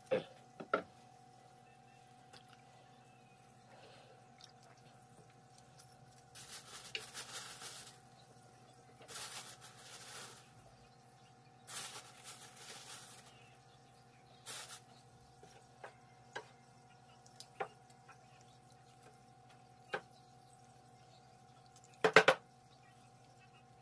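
A wooden spoon stirring red chili powder into thick, wet gochujang paste in a large stainless steel bowl: squelching scrapes in several short spells, with a few sharp knocks against the bowl, the loudest near the end.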